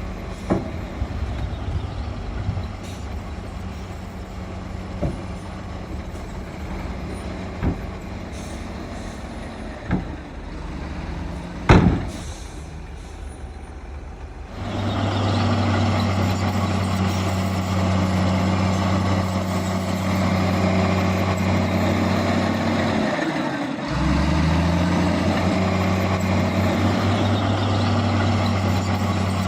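Heavy diesel earthmoving machinery running, with scattered knocks and one loud bang about twelve seconds in. About halfway through, a much louder steady diesel drone takes over. It drops briefly near the end and climbs back up.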